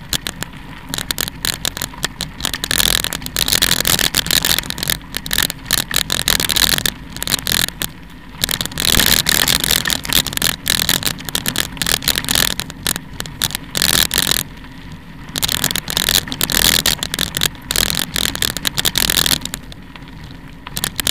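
Tyres rolling over a gravel dirt track: a continuous, irregular crunching and crackling of loose stones that swells and eases as the surface changes.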